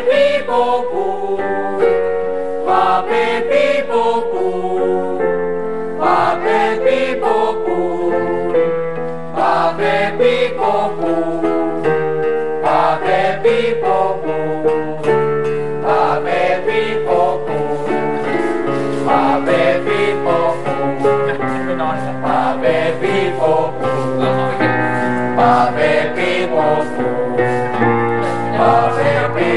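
A group of young voices singing together in held notes over a strummed acoustic guitar: a group vocal warm-up.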